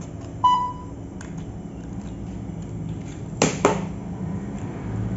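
A single electronic beep, about half a second long, just after the start. About three and a half seconds in come two sharp clacks close together, the loudest sound: scissors working on hard plastic microSD card packaging.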